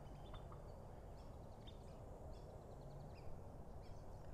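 Faint outdoor background noise with a few scattered bird chirps and a short rapid bird trill about two and a half seconds in.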